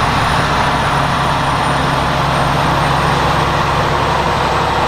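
Tractor engine running steadily at an even pitch, a heavy low hum under a constant rushing noise.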